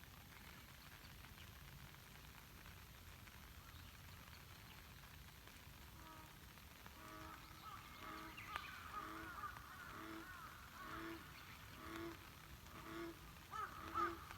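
Steady, faint hiss of rain on a lake. About halfway through, an animal starts a repeated low call, a little more than one a second, growing louder, with higher chirping calls over it.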